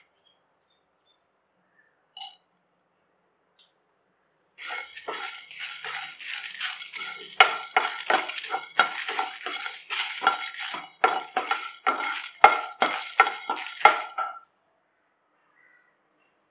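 Dry coriander seeds, dals, cumin and dry red chillies being stirred in a dry non-stick pan while they roast, the utensil scraping the pan with the seeds rattling, about two strokes a second. The stirring starts about four seconds in and stops shortly before the end.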